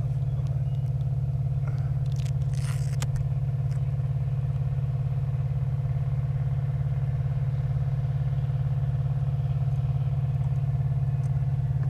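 Steady low hum from a crashed FPV drone lying in the grass, unchanging throughout, with a few faint brief rustles about two to three seconds in.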